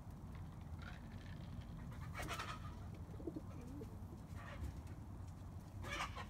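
Pigeons cooing in a loft, with a low wavering coo about three seconds in. Brief louder noises come about two seconds in and again near the end.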